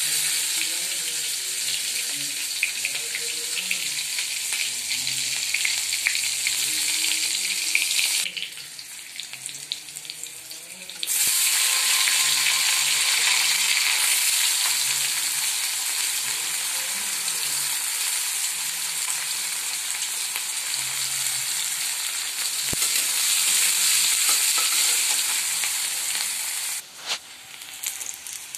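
Chopped onions sizzling in hot oil in a kadhai, the sizzle starting suddenly as they go into the pan, with a flat spatula stirring them. The sizzle dips for a few seconds about eight seconds in, comes back strong, and drops off near the end.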